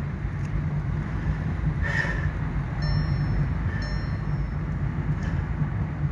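A car on the move: a steady low engine and road rumble, with a few faint, brief high squeaks a few seconds in.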